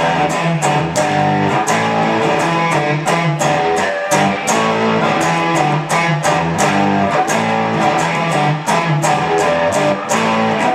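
Instrumental rock music: guitars playing over a steady, even beat, with no singing.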